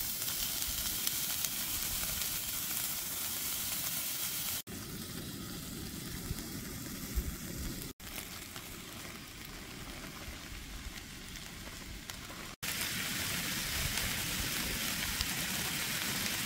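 Hamburger and potatoes frying in a cast-iron skillet, a steady sizzle. It breaks off sharply three times, about a quarter, half and three-quarters of the way through, and runs on straight after each break.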